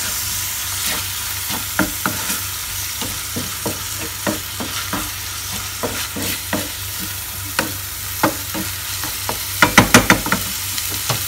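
A wooden spatula stirring and scraping a minced-meat sauce in a non-stick frying pan, over a steady sizzle of frying. It knocks irregularly against the pan, with a quick run of louder knocks near the end.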